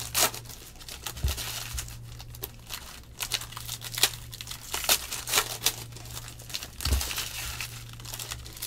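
Foil wrapper of a trading-card pack crinkling and tearing as it is opened, then cards rustling as they are handled: irregular crackles throughout, over a low steady hum.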